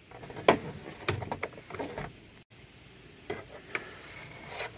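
Hard plastic toy parts handled by hand: scattered light clicks and taps as an action figure is pulled from a plastic wall slot and a plastic carbonite-slab piece is pressed into its place.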